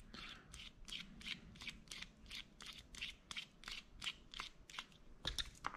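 Faint, evenly spaced light clicks, about three or four a second, as a precision screwdriver is turned to back a tiny side-cover screw out of a Shimano SLX BFS baitcasting reel.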